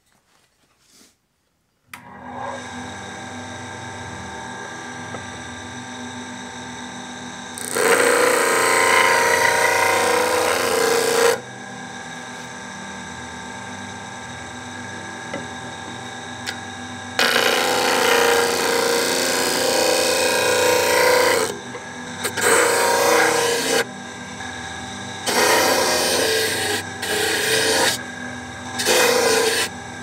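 Stationary disc sander switched on about two seconds in, its motor then running steadily, with much louder rasping spells as a wooden board's corners are pressed against the abrasive disc to round them off: two long passes of about four seconds each, then several shorter ones near the end.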